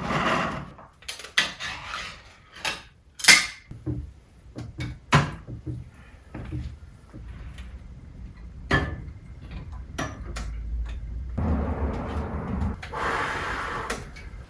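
Scattered knocks and clatter of hard objects being handled, then about three seconds of steady noise near the end.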